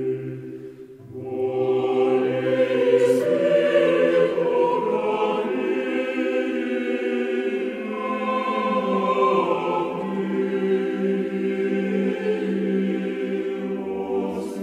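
A choir singing a slow song in long held notes, with a short break about a second in.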